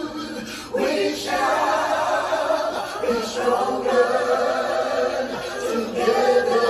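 Studio playback of many layered vocal tracks singing a cappella chord harmonies like a choir, in long held phrases that come in about a second in.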